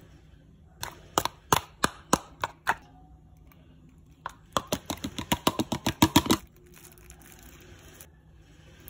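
Sharp plastic taps and clicks of a spoon and cup knocking against a plastic funnel: a handful of separate taps, then a quicker, louder run of taps about halfway through.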